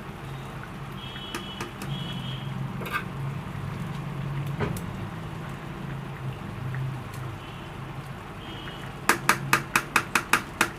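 Metal slotted spatula working through simmering chicken kadai in a pan, scraping and lifting off softened tomato skins, over a steady low hum. Near the end, a quick run of about ten sharp metallic taps comes in under two seconds.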